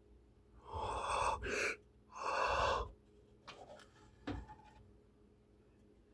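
Two loud breaths about a second apart, the first ending in a sharp click, followed by a few light clicks.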